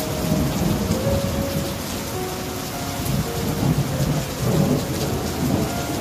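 Heavy rain pouring down, a dense steady hiss, with low rumbling swells rising and falling under it. A few faint held notes sound over the rain.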